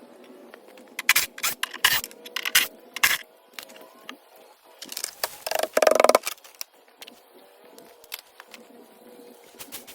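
Metal clicks, knocks and scraping as an air conditioning condenser is taken apart by hand, with a louder rasping scrape lasting about half a second around six seconds in.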